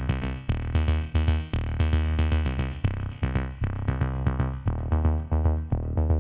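Background music: electronic track with a steady drum-machine beat and synthesizer notes.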